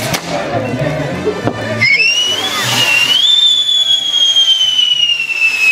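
Band music with sharp firework crackles, then about two seconds in a loud shrill whistle starts from a whistling firework on a burning castillo fireworks tower; it rises briefly and then falls slowly in pitch.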